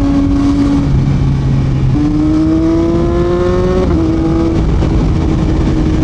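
Yamaha MT-09's 890 cc inline-three, with an Akrapovic full-system exhaust, heard from the rider's seat under throttle. The note drops about a second in, climbs steadily for about two seconds, steps down sharply near four seconds as at a gear change, then holds steady over wind and road noise.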